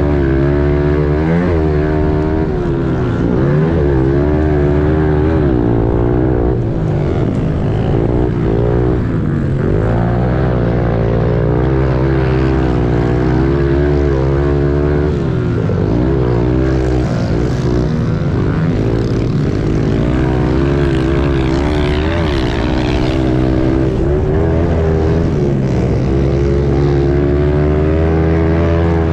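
Pit bike engine revving up and down over and over under throttle, its pitch rising and falling every few seconds as it pulls through ruts and sand.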